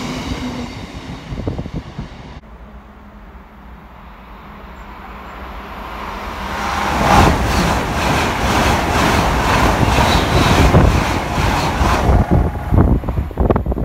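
Freight train wagons rolling past with wheel clatter, cut off abruptly. Then a passenger train approaches and passes at speed, building from about six seconds in to a loud rush of wheel and air noise with rapid knocks over the rail joints.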